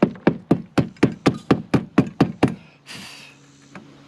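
Hammer driving nails into roof decking by hand: a quick, even run of about a dozen blows, four a second, that stops about two and a half seconds in, followed by a short hiss.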